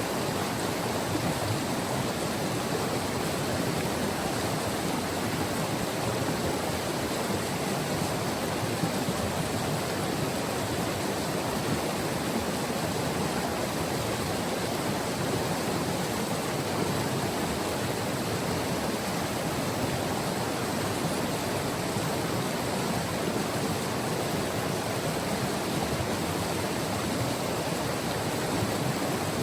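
River water rushing over rocks, a steady full rush without breaks.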